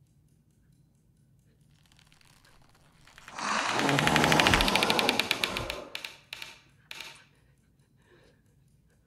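The sound-designed alien creature clicking: about three seconds in, a loud rattle of very rapid clicks with a low rumble beneath it, lasting a couple of seconds and fading away, then a few separate clicks.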